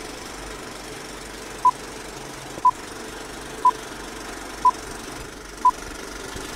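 Film-leader countdown sound effect: five short beeps of the same pitch, one each second, over a steady hiss.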